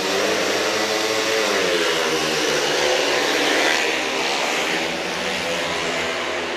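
Four speedway bikes racing, their 500 cc single-cylinder methanol engines running hard. Several engine notes overlap, dipping in pitch about a second in and climbing again as the bikes power on.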